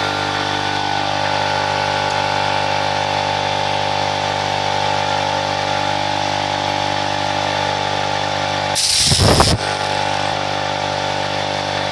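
A power tool's motor running steadily at constant speed, with a brief loud rough burst a little after nine seconds in.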